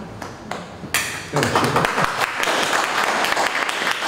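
Audience applauding: a few scattered claps, then full clapping from about a second in.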